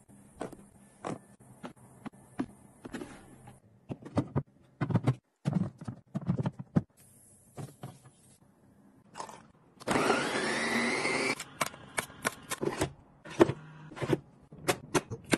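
Clear plastic food storage boxes and their lids clicking and clacking as they are handled, latched and set down, many short knocks spread through. About ten seconds in, a louder noise with a rising tone lasts about a second and a half.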